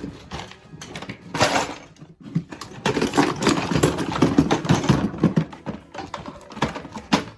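Ceiling fan motor housing being smacked against the floor: a knock about a second and a half in, then a fast run of repeated knocks for a couple of seconds and a few more near the end, an attempt to jar apart the stuck housing seam.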